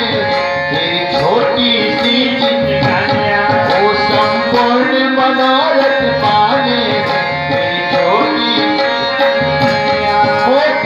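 Live devotional song: harmonium holding steady notes under a singing voice, with tabla-style hand drums and cymbal strokes keeping time.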